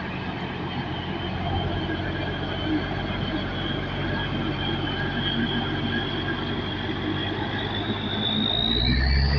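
A coach bus's diesel engine running as the bus pulls past and away, a steady low hum with a thin high whine above it. Near the end the whine rises in pitch and the engine grows louder.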